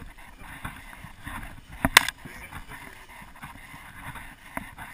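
Handling noise from a GoPro carried by someone walking through grass: irregular rustling and rubbing on the camera's microphone, with a sharp double knock about two seconds in.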